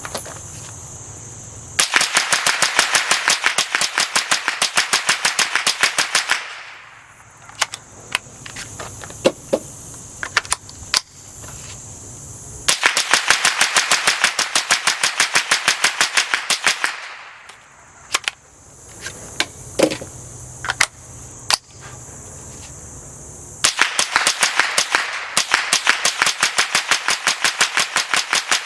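Suppressed Smith & Wesson M&P 15-22 .22 LR semi-automatic rifle fired in three rapid strings of shots, each about four and a half seconds long. A few scattered clicks come between the strings.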